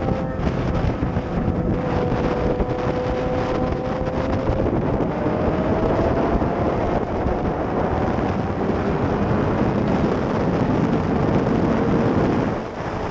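2014 Yamaha R6's 600cc inline-four engine running at highway speed under heavy wind noise on the microphone. The engine note climbs steadily for a few seconds about halfway through, and the loudness dips briefly near the end.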